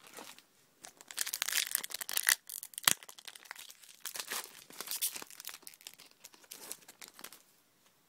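Foil wrapper of a Pokémon trading card booster pack being torn open and crinkled in the hands, with one sharp click about three seconds in.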